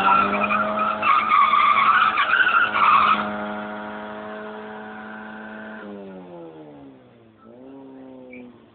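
Car engine held at high revs while the tyres squeal for about three seconds in a burnout. The engine then runs on steadily, and its revs fall away, dip and rise again near the end.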